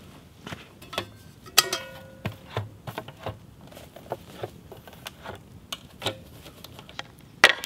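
Camp gear being handled: a stainless steel pot set down with a ringing metal clank about one and a half seconds in, followed by irregular clicks and knocks as a small folding camp table's metal legs are unfolded. The sharpest clicks come near the end.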